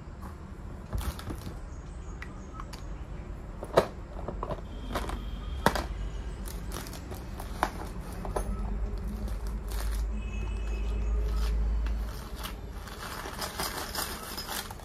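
Handling noises: a few sharp clicks and knocks as things are set down and picked up, with a saree's fabric rustling as it is arranged, and a stretch of dense crinkling near the end.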